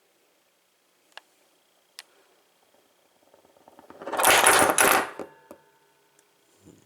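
A spun metal padlock wobbling down on a hard surface: a few faint clicks, then a rattle that builds into a loud, fast clatter about four seconds in and stops abruptly as the lock settles flat, like a dropped coin coming to rest.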